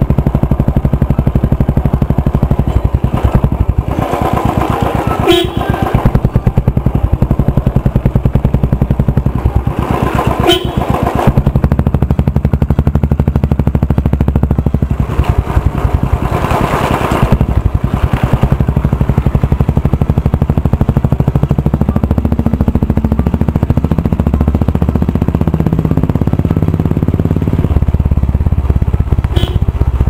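Royal Enfield single-cylinder four-stroke motorcycle running on the move, its exhaust beating steadily through a chrome Red Rooster Performance aftermarket silencer, growing louder for a few seconds at a time several times along the way.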